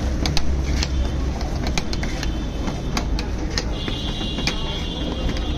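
Metal spoon scraping and clicking against a steel cup as spiced buttered corn is stirred, over a steady low street rumble. A high steady tone sounds for about two seconds in the second half.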